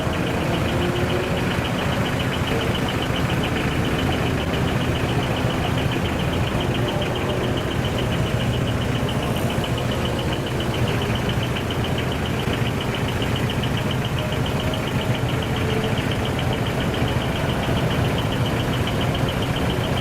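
Decorated heavy trucks' diesel engines idling together, a steady drone with a fast even pulsing running through it.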